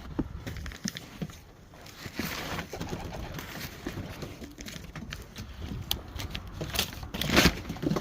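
Racing pigeons cooing in a loft, with scattered clicks and scuffling, and a loud rustling burst about seven seconds in.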